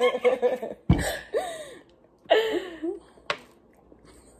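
A person's short cough-like and throat-clearing vocal noises, two of them, with two sharp clicks, one about a second in and one near three seconds in.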